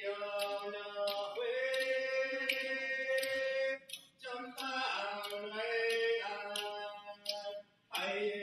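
Alaska Native singers chanting in unison, holding long notes over a steady beat on seal skin paddle drums, about two strikes a second. The singing breaks off briefly about four seconds in and again near the end.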